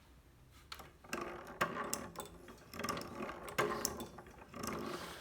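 A wooden automaton mechanism, made mainly of oak and other hardwoods, running, with a string of wooden clicks and knocks about twice a second from about a second in.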